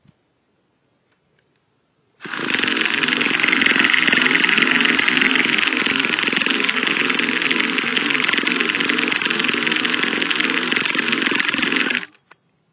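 Electric starter of a Traxxas T-Maxx 2.5 nitro truck spinning the engine steadily for about ten seconds, then cutting off suddenly, with the engine never catching: the nitro engine won't start.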